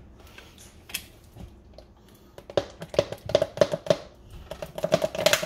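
Nearly empty olive oil bottle held upside down over a bowl, glugging in quick irregular pulses as the last of the oil runs out, starting a little over two seconds in.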